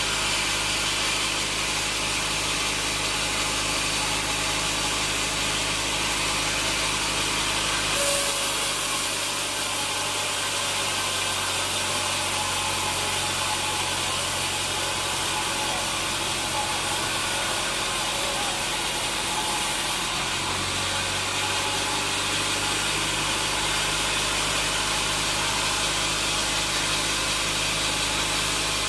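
Sawmill machinery running steadily with an engine-like hum and a broad hiss. The hiss changes sharply about eight seconds in and again around twenty seconds in.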